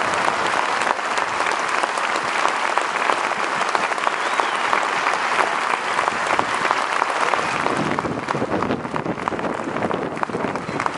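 Large crowd applauding, a dense steady clatter of clapping.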